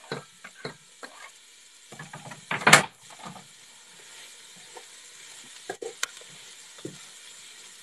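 Diced peppers, onions and garlic sizzling in hot fat in a stainless steel pot, stirred and scraped with a spatula, with small knocks against the pot. A louder clatter comes about two and a half seconds in.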